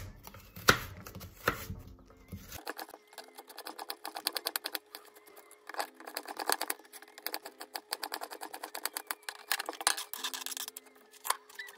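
Chef's knife rapidly dicing a carrot on a plastic chopping board: quick runs of sharp knocks of the blade hitting the board. Near the end the knife scrapes the diced carrot off the board into a bowl.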